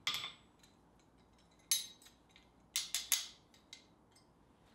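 Sharp metal clicks and clinks from a hand-forged steel nutcracker being worked open and shut at its pivot: a knock at the start, a single click, then a quick run of three and one more.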